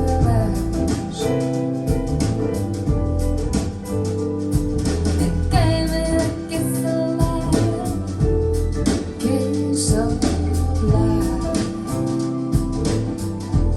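Recorded song with singing, guitar and a steady drum beat and heavy bass, played back through KEF LS50 Meta bookshelf speakers with two subwoofers.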